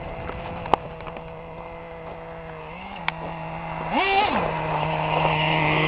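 Small nitro-fuelled engine of a Team Associated RC10GT radio-controlled truck idling steadily, blipped once in a quick rev about four seconds in before settling back to idle. A sharp click sounds just under a second in.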